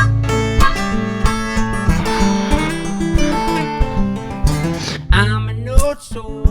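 Live acoustic guitar music from a one-man band, played without singing, with notes plucked and strummed over a steady run of low thumps.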